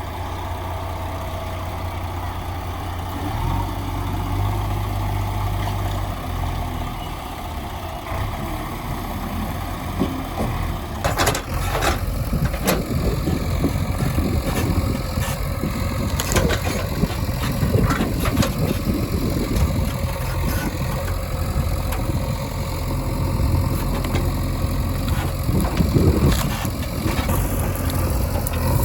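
Heavy diesel engine running steadily near idle. About eleven seconds in the sound grows louder and busier, with a series of sharp knocks over a rushing noise.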